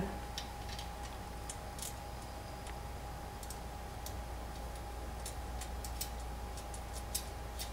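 Faint, irregular small clicks of a rack-mounting screw and washer being threaded in by hand, over a faint steady hum.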